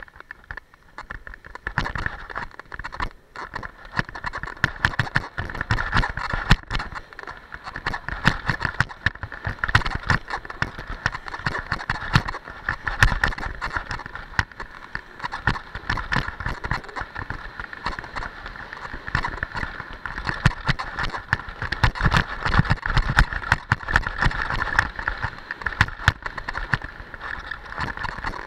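Skis scraping and hissing over hard-packed groomed snow during a downhill run, with a constant clatter of small knocks and low rumbling gusts of wind on the microphone. The level rises and falls in waves.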